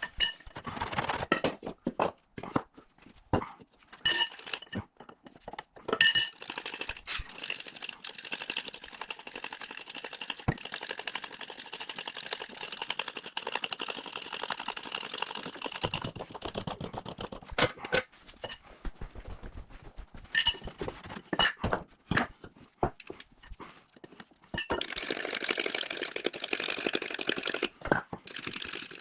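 Shop work while lowering a Humvee body onto its frame: scattered metal knocks and clinks, with a steady whirring hiss from about six seconds in to about sixteen, and again for a few seconds near the end.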